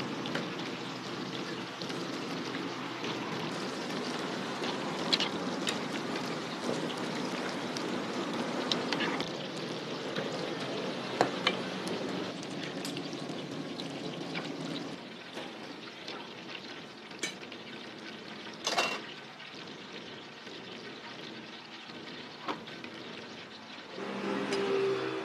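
Eggs frying in a large wok of hot oil: a steady sizzle, with scattered sharp clinks of a metal spatula. The sizzle drops somewhat quieter a little over halfway through.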